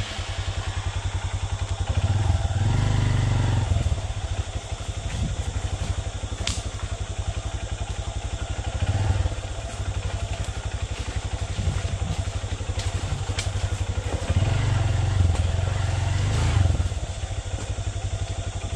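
Honda CRF150L's single-cylinder four-stroke engine running at low revs as the dirt bike is ridden slowly over a rocky trail. The engine is opened up briefly about two seconds in, again around nine seconds, and once more from about fourteen to seventeen seconds.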